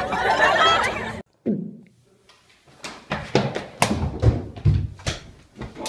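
Brief crowd chatter that cuts off abruptly about a second in. Later comes a run of sharp, irregular clicks and knocks, a few a second, in a small room.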